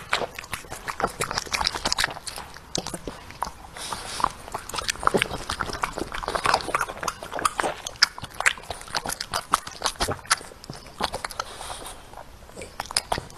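French bulldog chewing mouthfuls of leafy greens, a dense, irregular run of smacking clicks.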